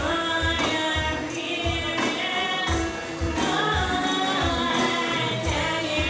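A band playing live, with a woman singing lead over acoustic guitar and a steady drum beat.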